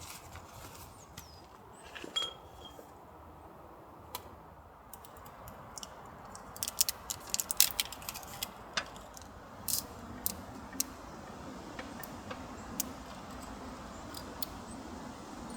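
Small sharp clicks and clinks of something being handled, most frequent about halfway through, over a steady low background noise.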